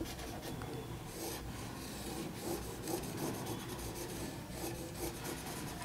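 Marker pen scratching and rubbing across a whiteboard in short, irregular strokes while drawing a structure.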